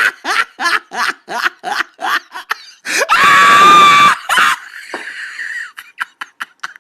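A person laughing in rapid short bursts, about three a second, then a loud high-pitched scream about three seconds in that lasts about a second.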